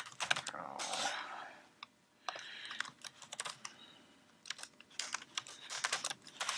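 Typing on a computer keyboard: quick runs of key clicks with short pauses, busiest in the last two seconds.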